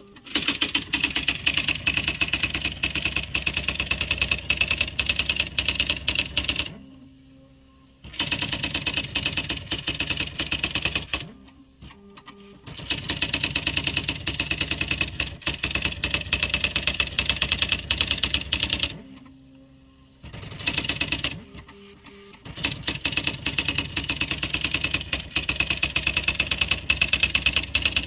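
Smith Corona XE-1950 electronic daisywheel typewriter printing its built-in demonstration text: rapid, even machine-gun clatter of print strikes in runs of several seconds, broken by short pauses between lines that carry a brief low motor hum.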